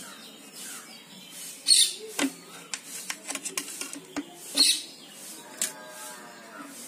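Kitchen knife cutting muskmelons over a plate: two short scraping swishes and a scatter of light clicks and taps of the blade and fruit on the plate. Birds chirp faintly in the background.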